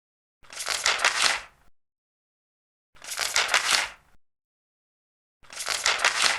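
Large paper pages being turned, three turns about two and a half seconds apart. Each is a papery rustle lasting a little over a second, with dead silence between turns.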